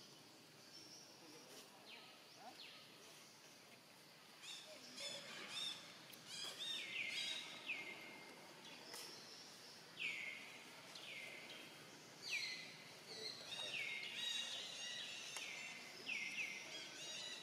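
Birdsong: a run of short whistled calls, each sliding sharply down in pitch, repeated every half second or so from about four seconds in, over faint outdoor ambience.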